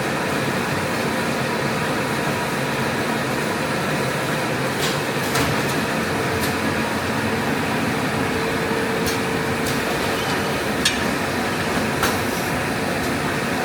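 Automatic turret rewinder machine running at 105 metres per minute: a steady mechanical hum with a few faint steady tones and scattered light clicks.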